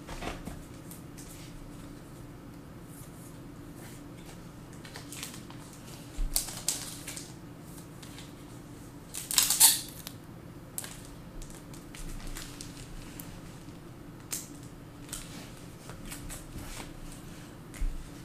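Trading cards and packs being handled on a table: scattered light clicks and rustles, the loudest a short burst about nine and a half seconds in, over a steady low hum.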